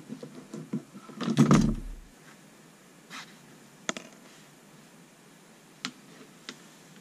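Hand tools and a red electrical wire being handled while its insulation is stripped with a wire stripper: a run of small clicks building to a louder scraping clatter about a second and a half in, then a few sharp single clicks.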